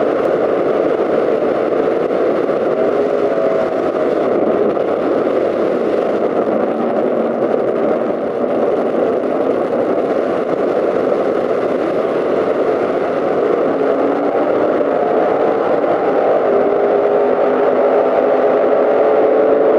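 Super Stock drag cars' V8 engines running, a loud steady din that grows slightly louder near the end.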